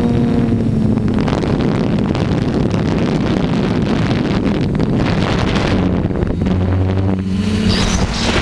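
Quadcopter drone's motors and propellers humming steadily, picked up by the camera on the drone, with heavy wind noise rushing over the microphone. The hum is buried under the wind through the middle and comes back clearly near the end.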